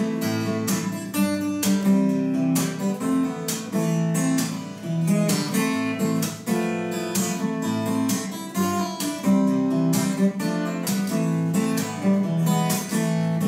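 Solo acoustic guitar strummed in a steady rhythm of chords, an instrumental break with no singing.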